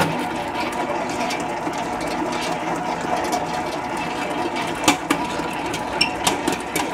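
Stand mixer switched on with a dough hook kneading bread dough in a stainless steel bowl: a steady mechanical whir of motor and gears, with a few sharp knocks. The kneading goes on because the dough still tears too easily and has not yet reached the windowpane stage.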